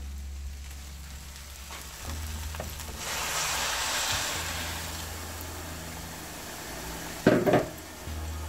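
Water poured into a hot pot of just-sautéed rice and vegetables, hissing and sizzling as it hits the pan. The hiss swells about three seconds in and dies down gradually, with a brief knock near the end.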